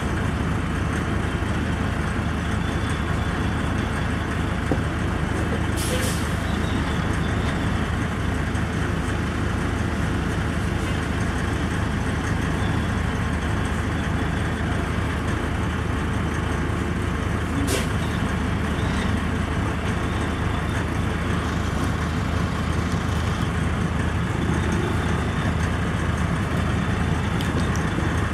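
Diesel semi truck engine running steadily at low speed as the tractor and lowboy trailer creep forward. There are two brief sharp noises, about six and eighteen seconds in.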